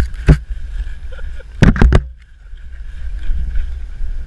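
Knocks and bumps of a Saint Bernard puppy's mouth and nose against a GoPro camera's housing: one sharp knock just after the start, then a quick run of three about halfway through. Under it, a steady low wind rumble on the camera's microphone.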